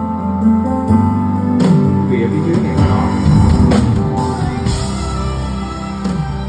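Live band playing an instrumental break in a slow ballad, a saxophone carrying a wavering melody over the accompaniment, with a few sharp beats.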